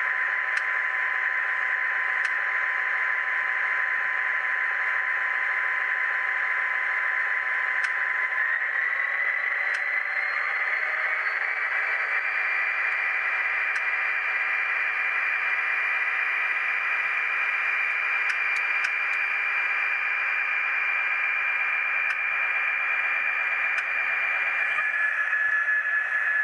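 Simulated diesel locomotive engine from an ESU LokSound Select sound decoder, played through a tiny 14 x 25 mm speaker, so the sound is thin and tinny. It runs steadily, then climbs in pitch between about nine and twelve seconds in as the engine notches up, and holds at the higher pitch.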